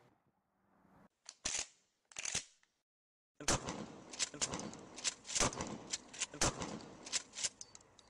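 Gunshots: two single shots about a second and a half and two seconds in, then from about three and a half seconds a rapid, irregular string of shots over a steady hiss.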